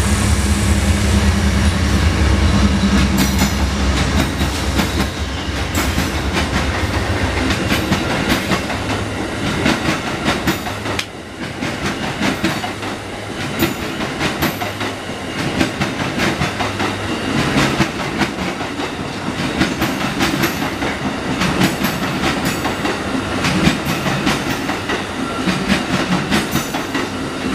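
Amtrak passenger train passing. The diesel locomotives' heavy low engine rumble dominates the first few seconds. Then a long run of passenger cars goes by, its wheels clicking steadily over the rail joints.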